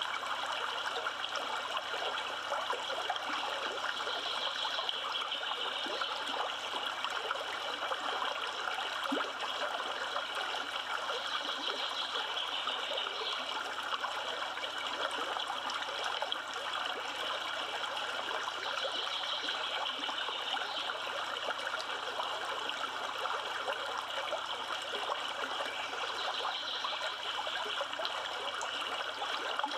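Yellowstone River flowing: a steady, continuous rush of moving water.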